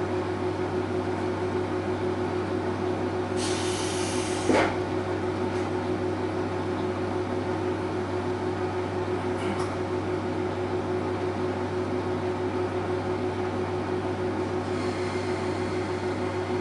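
Diesel railcar's engine idling steadily with a low hum while the train is stopped. About four seconds in, a brief hiss ends in a sharp clunk, and near the end another hiss starts.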